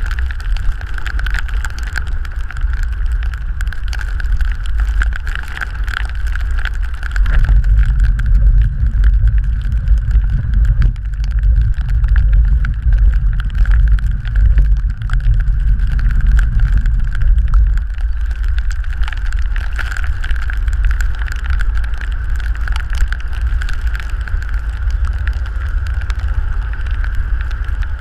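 Wind buffeting the microphone of a camera mounted on a moving handcycle, as a loud low rumble that grows heavier for about ten seconds in the middle, over the hiss of tyres and spray on rain-soaked asphalt and a thin steady high hum.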